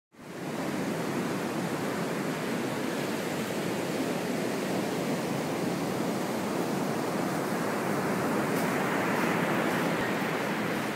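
Ocean surf washing onto the beach, a continuous rushing noise that swells a little about eight seconds in.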